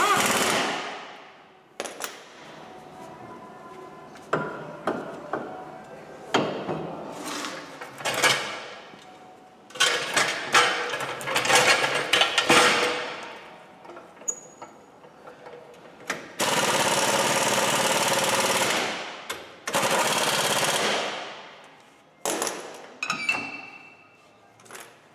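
Pneumatic impact wrench going in repeated bursts on the van's front hub and brake assembly during reassembly, with the longest, steadiest run of about three seconds near the two-thirds mark, and metal clatter of tools and parts between the bursts.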